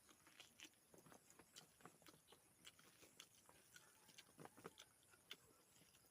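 Faint eating sounds: a person chewing close to the microphone, with short irregular mouth clicks several times a second.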